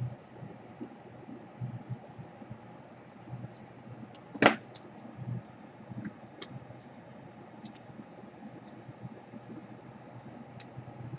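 Small scattered clicks and taps of hand tools picking heat shrink off the soldered wire joints on the back of a laptop DC power jack, with faint handling rustle. One sharp, much louder click comes about four and a half seconds in.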